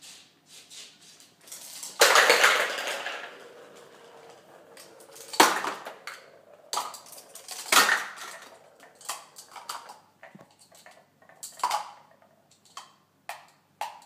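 Hard plastic stacking cups clattering as a cockatoo knocks them over and tosses them about. A loud tumbling clatter comes about two seconds in, then a few sharp knocks, then a run of lighter clicks toward the end.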